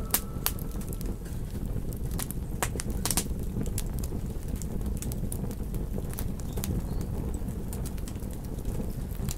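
Campfire crackling: irregular sharp pops and snaps over a steady low rumble of the burning fire.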